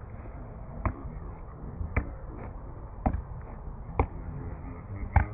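A football being juggled in the air off a player's knees and legs, a short tap at each touch, five touches about a second apart.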